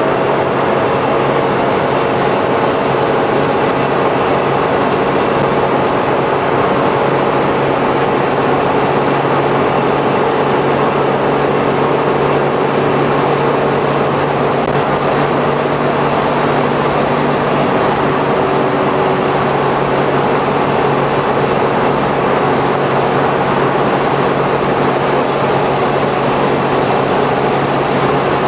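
Suzuki Every kei van with Auto Gear Shift (a 660 cc three-cylinder), heard from inside the rear cargo area cruising steadily at highway speed: a constant engine drone under tyre and road noise.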